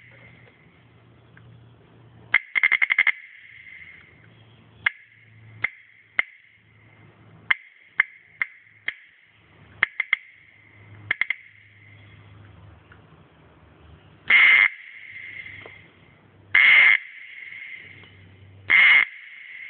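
Abu Garcia Cardinal C4 spinning reel's ratchet clicking: single sharp clicks and a quick run of clicks, then three louder ratcheting bursts of about half a second each near the end.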